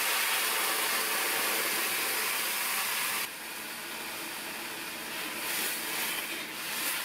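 Hot water poured into semolina roasted in ghee in a hot stainless steel kadai, hissing and sizzling loudly. The hiss drops sharply a little over three seconds in, as the pouring stops, leaving a quieter sizzle of the bubbling mixture.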